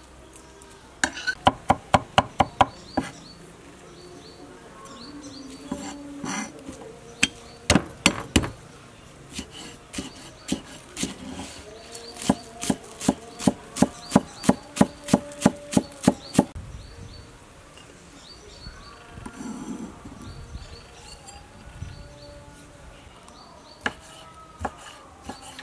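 Kitchen knife chopping garlic and green onions on a wooden cutting board, in quick runs of sharp chops, about four to six a second, with pauses between. Near the end come a few slower single cuts.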